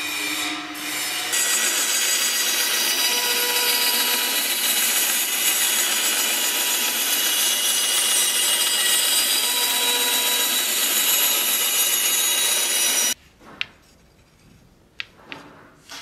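Small bandsaw running and cutting through a thin wooden board: a steady sawing noise with a faint whine, which cuts off abruptly a few seconds before the end. After it, a few light clicks of wood pieces being handled.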